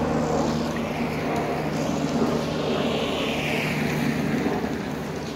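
Steady engine drone from a distant motor vehicle, with a whooshing sweep that falls in pitch about three seconds in.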